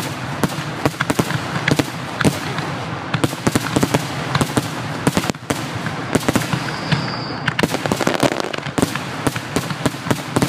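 Fireworks finale: a dense, continuous barrage of sharp bangs and reports, many per second, from aerial shells and rising comets. A brief high whistle sounds through it near the middle.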